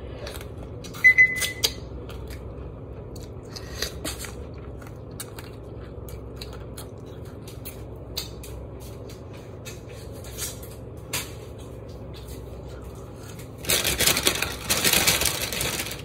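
Close-up eating sounds: scattered wet clicks and lip smacks from chewing and finger-licking over a low steady hum, with a louder stretch of noise near the end.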